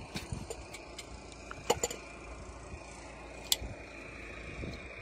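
A few sharp clicks and knocks of parts being handled on a combine's air-intake system, the two loudest about a second and a half in and about three and a half seconds in, over a steady low hum.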